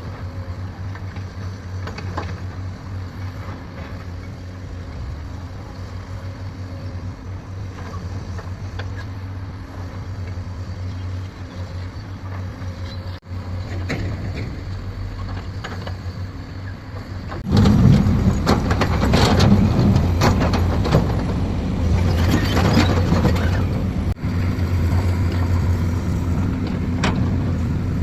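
Heavy diesel construction machinery running with a steady low engine hum. About two-thirds of the way through it turns suddenly louder and rougher, with many metallic clanks and knocks.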